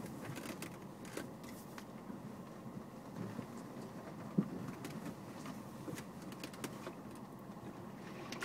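Cabin noise of an off-road vehicle crawling over a rough dirt trail: a low steady rumble with many scattered light clicks and rattles from the body and interior, and one sharper knock a little past halfway.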